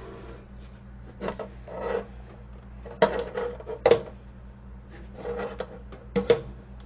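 Handling noise as coax cables and their connectors and a small radio transceiver are moved about on an amplifier case: about half a dozen short knocks and clicks scattered through, with cable rubbing and scraping in between.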